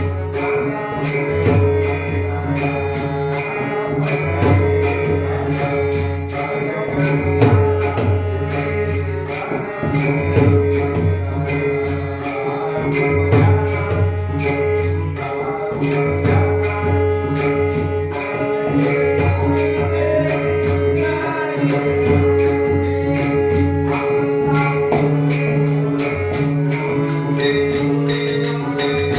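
Marathi devotional bhajan music: a fast, even jingling beat over a held drone tone, with a deep bass figure repeating every second or two.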